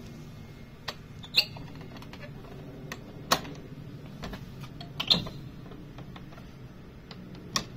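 Clicks and knocks of the generator's hinged control-panel cover being lifted and its prop rod set in place: a handful of sharp clanks, the loudest about a second and a half in and again about five seconds in, over a steady low hum.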